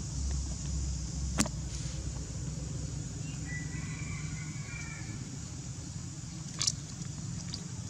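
Outdoor ambience with a steady low rumble, a sharp click about a second and a half in and another near the end, and a faint high animal call lasting about two seconds midway.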